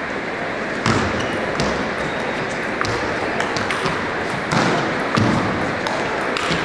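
Table tennis rally: the celluloid ball clicking off the bats and the table in a quick, irregular series of sharp ticks, over the steady background noise of a large hall.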